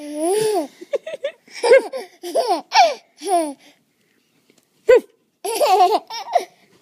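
Baby laughing in short bursts of high-pitched giggles, with a pause of about a second midway before the laughing starts again.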